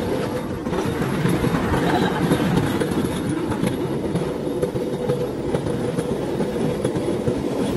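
Cambodian bamboo train (norry) running along the rails: the steady rumble and rattle of its steel wheels on the track, over the drone of its small engine.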